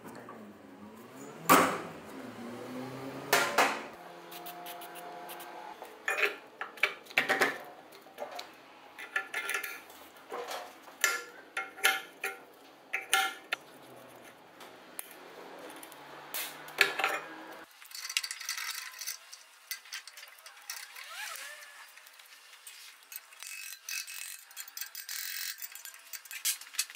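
Hand tools and metal compressor parts clinking and knocking, a string of separate sharp strikes, some ringing briefly. About two-thirds of the way through the sound changes abruptly and loses its low end.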